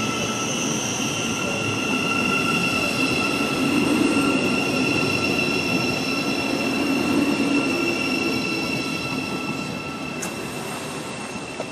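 Thameslink Class 700 electric train moving slowly along the platform, giving a steady high-pitched whine made of several tones over a low rumble. The sound eases off slightly near the end, and there is a small click near the end.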